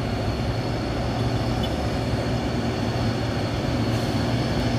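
Heavy diesel truck engines running steadily under load, a continuous low drone that holds its pitch as the trucks crawl on a steep hill grade.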